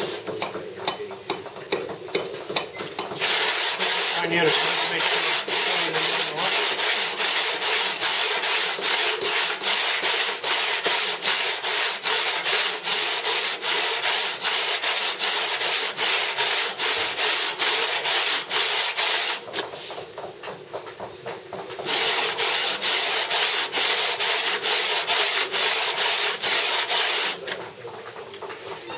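Large coarse-toothed hand saw cutting into a block of soft Bath stone, a gritty rasp on each quick, even back-and-forth stroke. The sawing starts about three seconds in, breaks off for a couple of seconds past the middle, then resumes and stops near the end.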